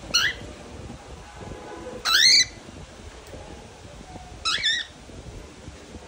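Cockatiel calling: three short chirps about two seconds apart, the middle one the loudest, each bending up and down in pitch.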